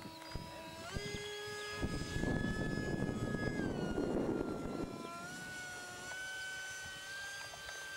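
Multiplex Twister radio-controlled model jet flying overhead, its motor a steady high whine. The pitch steps up about a second in, then holds, sagging and recovering slightly.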